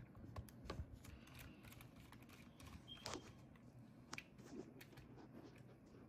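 Near silence with faint, scattered small clicks and taps from a precision screwdriver with a Phillips bit undoing the tiny screw that holds a laptop's SSD, and from fingers handling parts on the open board. The clearest click comes about three seconds in.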